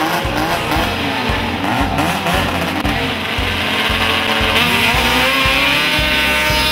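Snowmobile engines running hard and revving up and down as the sleds skim across open water, with background music underneath.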